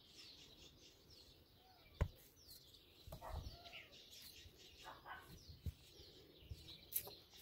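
Small birds chirping faintly, many short falling chirps one after another. A sharp click about two seconds in and a few low knocks cut through.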